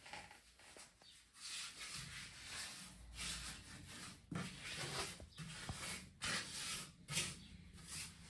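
Trowel scraping and smoothing a wet cement mortar bed on a floor, in repeated rasping strokes, with a couple of sharp knocks about halfway through and near the end.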